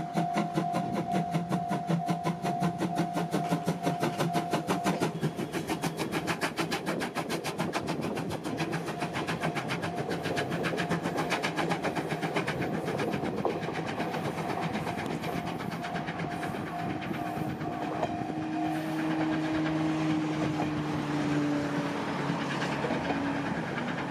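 C12-class steam tank locomotive working a train, its exhaust beating in rapid, even chuffs. After about halfway the beats blur into the rumble and clatter of the coaches' wheels on the rails as the train draws away.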